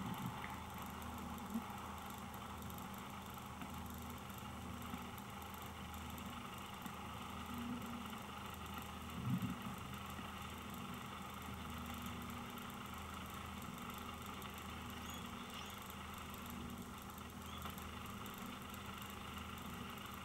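A steady, machine-like hum over a faint hiss, unchanging throughout, with a brief louder knock about nine seconds in.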